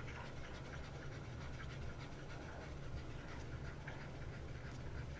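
Faint steady low hum with a light hiss: room tone.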